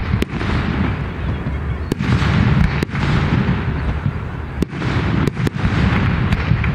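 Aerial fireworks going off: a string of sharp bangs, a second or so apart, over a continuous low rumble of booms.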